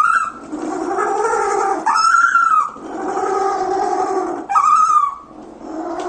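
Little blue penguin braying. Long, lower notes alternate with short, higher ones, the cycle repeating about every two and a half seconds.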